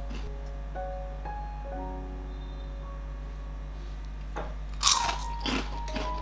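Background music with a soft melody. In the last couple of seconds, three or four sharp crunches of crispy fried potato chips being bitten; the second is the loudest.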